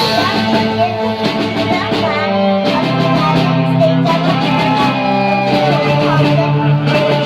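Live rock band playing an instrumental stretch of the song, with guitar carrying the melody and no vocals.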